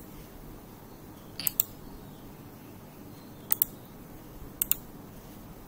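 Computer mouse clicking: three sharp double clicks, a second or two apart, over a faint steady background hiss.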